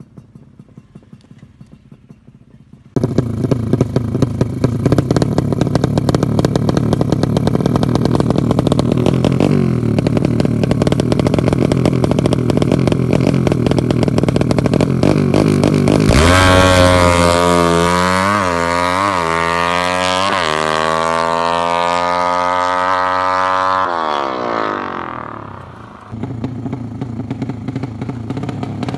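Yamaha MX FFA drag-racing bike's bored-up 325cc four-stroke single running loud and clattery, then launching away hard: the engine note rises and drops several times in quick succession as it shifts up through the gears, climbs in one long pull, then dies away into the distance.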